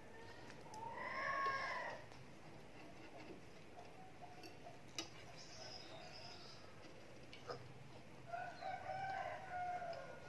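A rooster crowing in the background, faint, twice: a short call that rises and falls about a second in, and a longer, wavering call near the end. A couple of sharp clicks of a fork against a plate come between.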